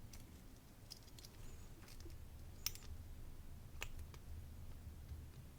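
A few faint, sharp metallic clicks as the plug of a 10-pin Domus euro cylinder lock is eased part-way out of its housing. The sharpest click comes about two and a half seconds in.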